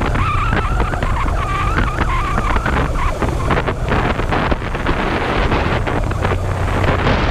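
Kawasaki GPz250 Belt Drive motorcycle engine running at a steady cruise, with wind buffeting the microphone. A wavering high-pitched tone sounds over it for the first three seconds.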